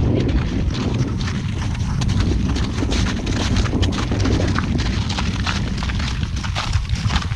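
Wind buffeting the microphone as a steady low rumble, with irregular small clicks and crunches throughout.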